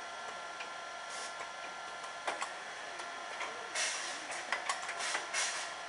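Automatic pancake line machinery running with a steady hum and whine, broken by clicks and short hissing bursts as the batter depositor drops portions onto the conveyor's hot plates.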